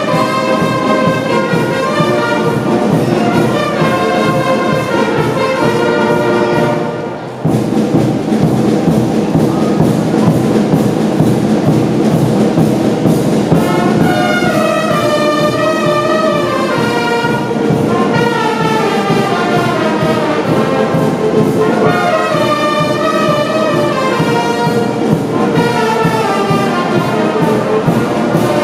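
Concert band of brass, woodwinds and percussion playing a piece with a steady beat; the sound drops briefly about seven seconds in and comes back in full.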